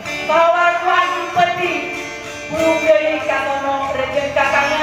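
Acoustic guitar accompaniment with a voice singing long notes that slide in pitch. The voice comes in three phrases: just after the start, about halfway through, and near the end.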